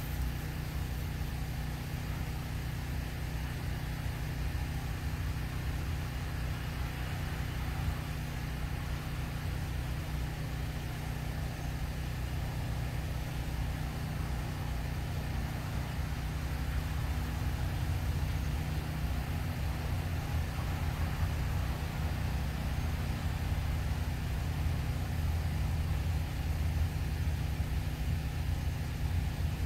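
A steady, low-pitched rumble with a hum in it, with no distinct events; it grows slightly louder about halfway through.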